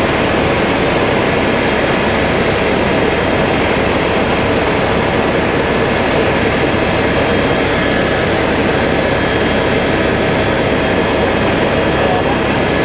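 Steady engine and propeller drone of a small aircraft in flight, heard from inside the cabin.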